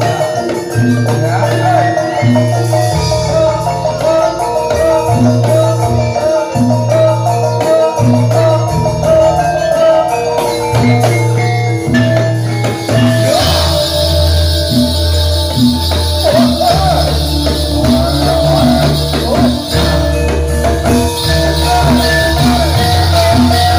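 Javanese gamelan music accompanying a jathilan horse dance: metallophones play a repeating melody over steady drum strokes and low bass notes, with a wavering melody line above. A bright, cymbal-like shimmer joins about halfway through.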